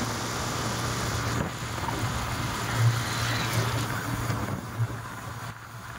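Motorbike engine running steadily with a low hum while riding along a road, under wind and road noise on the microphone.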